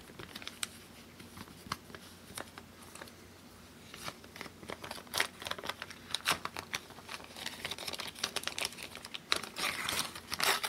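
Paper envelope being handled and opened by hand: crinkling and rustling of paper, sparse at first and much busier from about four seconds in.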